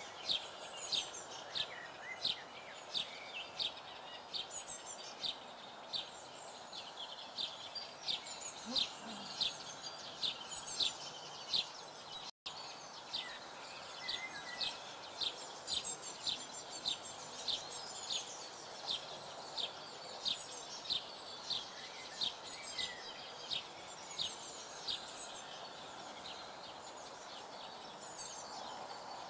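Small birds chirping, short high calls repeating a couple of times a second, over a steady background hiss.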